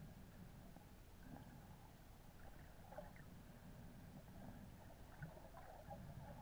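Near silence: faint, muffled underwater ambience picked up by a submerged camera, a low rumble with scattered faint crackles.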